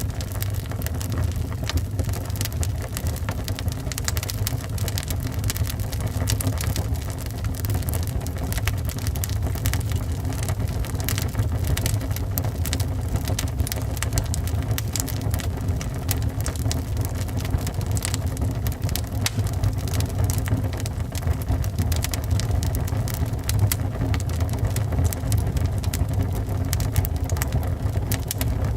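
Wood fire burning in a fireplace: frequent, irregular sharp crackles and pops over a steady low rumble.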